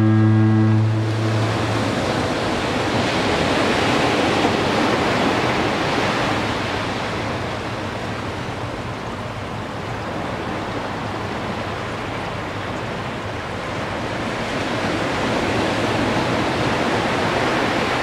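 Ocean surf breaking and washing up a sandy beach, a steady rushing that swells and eases. A foghorn's low, steady blast carries on at the start and stops about a second and a half in.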